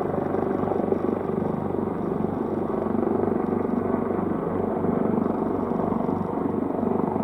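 Boeing 747-8F freighter's four GEnx turbofans giving a steady jet rumble as the aircraft climbs away after takeoff.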